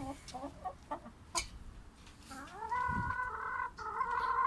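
Chickens clucking in short calls, then a rooster crowing: one long call about two seconds in that rises and then holds, with a short break near the end.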